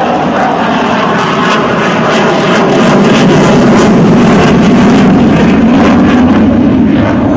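Military jet aircraft flying overhead at an air show. Its engine roar swells about three seconds in and stays loud, with a crackling edge.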